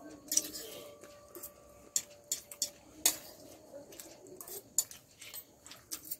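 Metal forks clinking and scraping against plates while two people eat noodles fast, a scattered series of sharp clicks.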